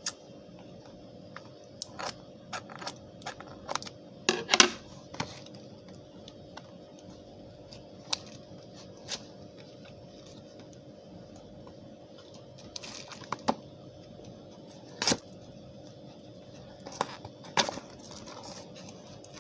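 A small cardboard phone box being handled and opened: scattered sharp clicks, taps and short rustles of packaging, with a burst of them about four seconds in and more near the end.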